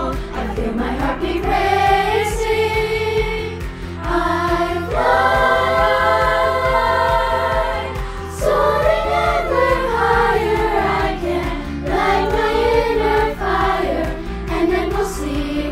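Children's and youth choir singing an upbeat choral song over an accompaniment with a steady low beat, holding a long chord from about five to eight seconds in.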